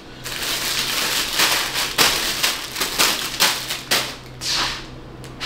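Packaging rustling and crinkling as it is handled, in quick, uneven strokes, over a faint steady hum.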